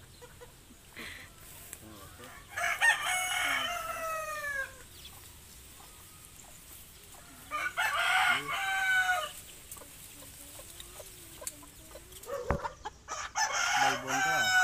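Rooster crowing three times, about five seconds apart, each long crow sliding down in pitch at its end, with one sharp click just before the last crow.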